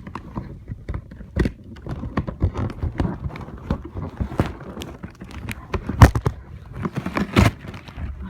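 A toy keyboard's packaging being struggled with: irregular knocks, taps and crinkling of cardboard and plastic, with a few louder knocks about six and seven seconds in.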